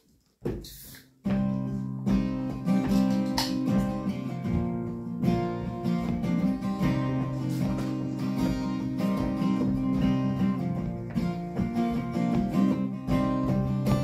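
Acoustic guitars and a banjo strike up together about a second in, strumming and picking the instrumental introduction to a traditional folk song.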